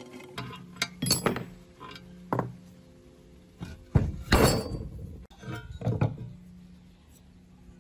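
Steel parts of an old Asada iron cutter being taken apart by hand: a hex key in a bolt and a square steel block lifted off and set down on the metal body, giving a series of sharp metal knocks and clinks. The loudest knock comes about four seconds in.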